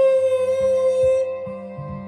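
A boy singing, holding one long note of a Japanese song over a soft backing accompaniment; the note softens after about a second.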